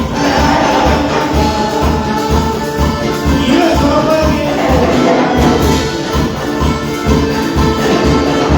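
Upbeat church praise music from a band, with a steady bass beat about two beats a second.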